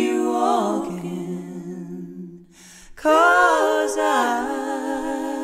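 A solo voice singing a slow song, holding long notes: one phrase fades out about two seconds in and a new sustained phrase begins about three seconds in.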